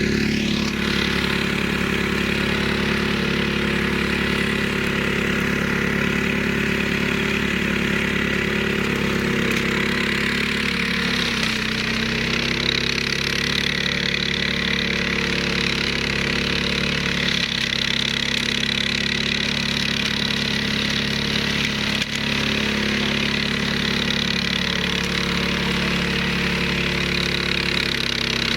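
Flail mower's Hyundai 15 hp engine running steadily, its pitch dipping briefly about eleven seconds in.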